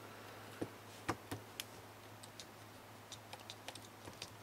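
Light, irregular clicks and taps of small parts being handled while working on a knitting machine's needle retainer bar, a few sharper clicks in the first second and a half, then a run of faint quick ticks.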